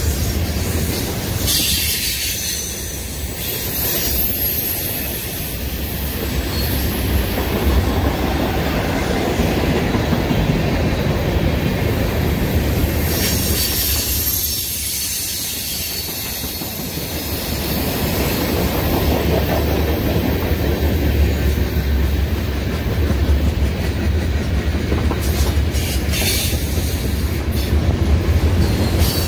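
Freight train tank cars rolling past close by: a steady heavy rumble and clatter of steel wheels on the rails, with high-pitched wheel squeals a few times.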